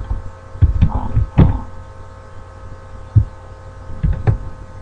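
Keystrokes on a computer keyboard, heard as about half a dozen dull thumps at uneven spacing, over a steady electrical hum.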